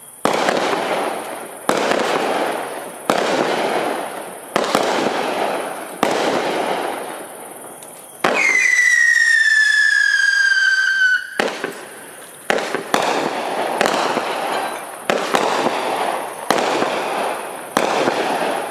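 Hot Fireworks 'Tactical' 21-shot firework cake firing, one bang about every second and a half, each fading away after it. About eight seconds in, a single whistle falls slowly in pitch for about three seconds.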